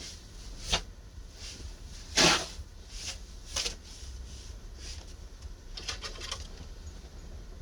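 Snow shovel scooping and scraping through deep snow in separate strokes, the loudest about two seconds in, with a quick run of short scrapes near the end.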